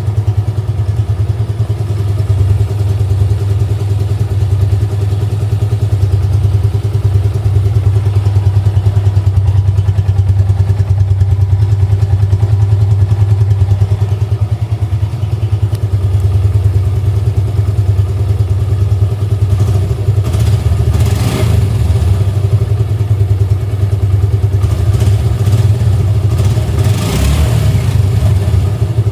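Suzuki Gixxer motorcycle engine idling steadily with no throttle, its exhaust giving an even low pulse. In the second half there are a few brief clattering knocks.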